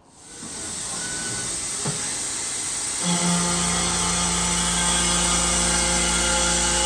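Miltronics CNC milling machine decking a scraped steel plate, taking a few thousandths off with a facing cutter to clean off the scrape marks. A steady hiss, joined about three seconds in by a steady whine from the spindle and cut.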